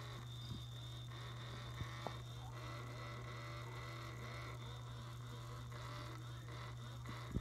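Steady low electrical hum with a faint high whine, and a few soft taps or clicks.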